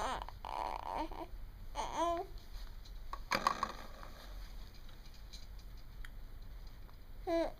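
A baby making short high babbling calls and buzzy 'toot' noises, a few separate sounds with pauses between.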